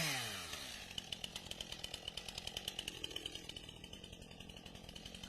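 Stihl chainsaw coming off the throttle, its pitch falling, then idling quietly with a rapid light ticking.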